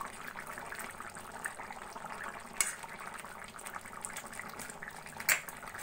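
Thick yam-and-potato curry simmering in a kadai, bubbling and sizzling softly, with freshly added ghee. There are two sharp clicks, about two and a half and five seconds in.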